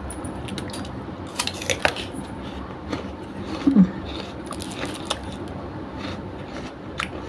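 Close-miked eating sounds: chewing with scattered wet mouth clicks and light clicks of a utensil, plus a short hum about halfway through.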